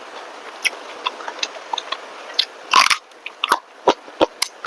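A person eating close to the microphone: wet chewing, with short smacking and clicking mouth sounds at irregular intervals and a louder cluster of them about three seconds in.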